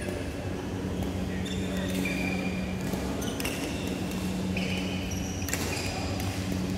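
Badminton hall sounds: a few sharp racket-on-shuttlecock hits and short squeaks of court shoes on the mats, over a steady low hum.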